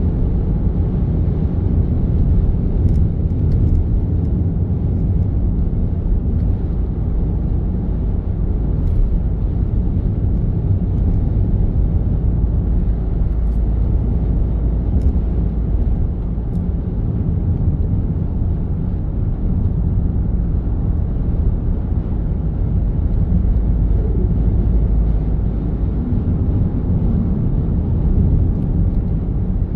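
Steady low rumble of a vehicle driving on the road: engine and tyre noise that holds level throughout, with no distinct events.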